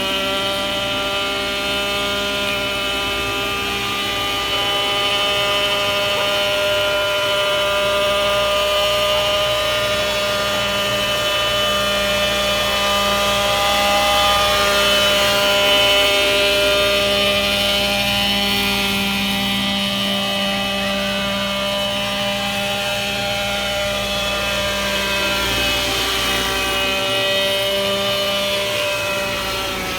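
Six-channel RC helicopter's 27cc petrol engine running in flight, its rotor and engine note holding a steady pitch with slight wavering.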